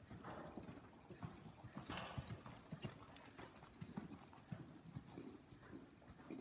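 Hoofbeats of a horse moving at a lively gait on soft dirt arena footing: a quick, uneven run of dull thuds. A short breathy rush comes about two seconds in.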